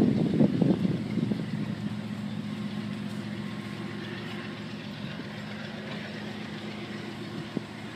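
Diesel engine running with a steady low hum that fades gradually.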